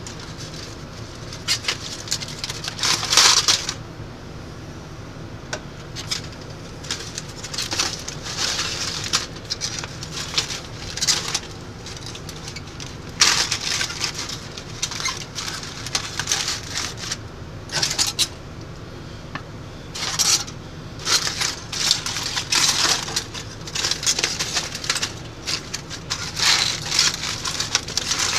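Aluminium foil crinkling and rustling in irregular bursts as it is handled and pulled open around a roast.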